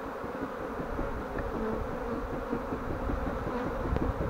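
A swarm of honeybees in flight buzzing all around, many bees' wingbeats overlapping. Single bees pass close, their hum wavering up and down in pitch.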